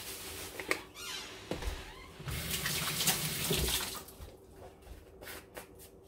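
Kitchen tap running into a sink for a couple of seconds, loudest in the middle, followed by a few light clicks near the end.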